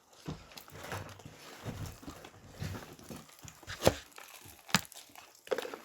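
Eating spicy fried chicken: meat being torn from the bone and crinkling of the paper bucket or wrapping, with two sharp clicks of handling about four and five seconds in.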